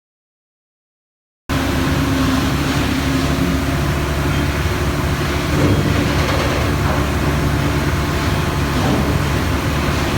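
Loud, steady running of heavy machinery with a low drone. It cuts in abruptly about a second and a half in, after a moment of dead silence.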